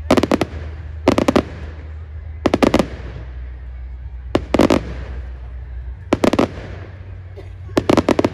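Aerial fireworks bursting overhead. The bangs come in quick clusters of three or four sharp cracks, about six clusters a second or two apart, over a steady low rumble.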